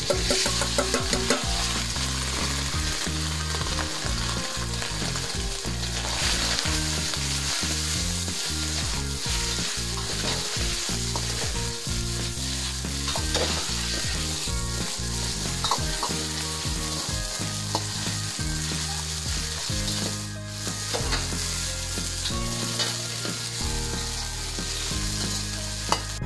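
Beef strips searing in hot oil in a very hot wok: a loud, steady sizzle, with the metal ladle and spatula clicking and scraping against the wok as the meat goes in and is stirred, most sharply in the first second or two.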